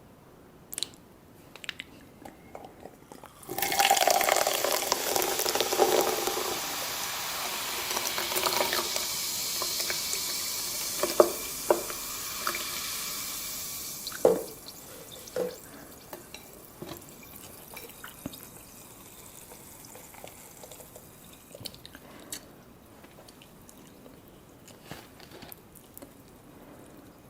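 Liquid being poured in a steady stream for about ten seconds, the hiss fading out, followed by a few sharp clicks and light taps.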